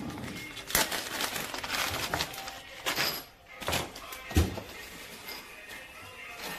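Handling noise: a plastic bag of fittings rustling, and small plastic push-fit fittings clicking and knocking on a stone countertop, with a thump about four and a half seconds in.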